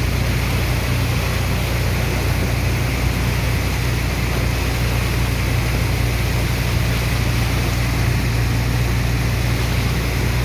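Sand dredger's engine and pump running steadily: a constant low hum with a wash of rushing water over it.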